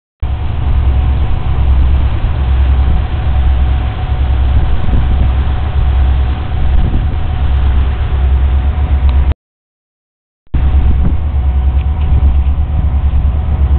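Steady, loud rumble aboard a moving river tour boat: the boat's engine drone mixed with wind noise on the microphone, with a faint steady hum on top. The sound cuts out completely for about a second just after the nine-second mark.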